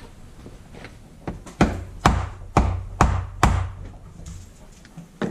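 Hammer striking a powder-coated lead slingshot ball held in needle-nose pliers on the anvil of a bench vise, flattening it: about six sharp blows a little under half a second apart starting about a second in, then two lighter taps near the end.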